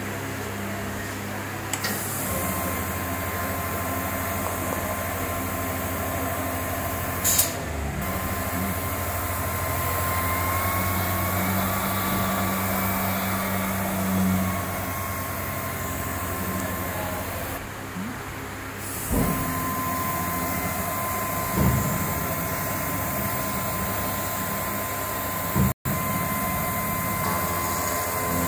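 PTX500S copy router running in operation: a steady machine hum with a thin high whine that comes and goes, broken by a few sharp clicks as its controls and parts are worked.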